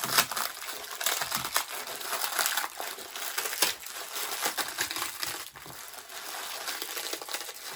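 Dry instant noodles being crushed by hand inside their crinkling plastic packet: a dense run of irregular crackles and crunches.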